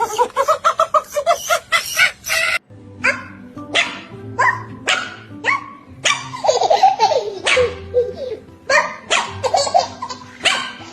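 A person laughing in quick bursts, then a dog barking repeatedly over background music, with one longer falling whine or howl about halfway through.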